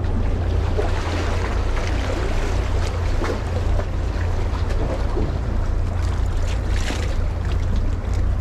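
Wind rumbling on the microphone over the steady wash of the sea.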